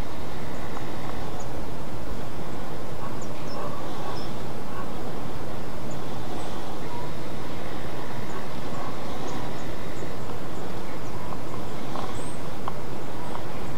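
Steady rushing background noise, even in level throughout, with a few faint, brief high chirps scattered through it.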